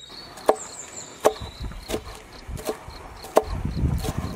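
Chef's knife slicing a red bell pepper into strips on a wooden cutting board. The blade knocks sharply on the board about every three-quarters of a second, six times.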